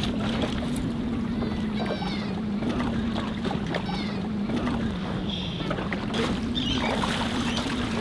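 Outboard motor of a small inflatable boat idling with a steady low hum, over the wash of the sea. Seabirds, likely gulls, call briefly about two seconds in and again about four seconds in.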